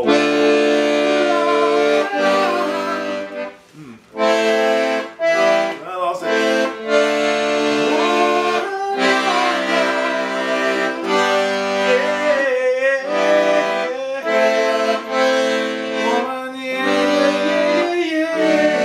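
Vintage Italian piano accordion playing held chords by ear, with a man's voice singing a wordless melody over it. The sound breaks off briefly about four seconds in.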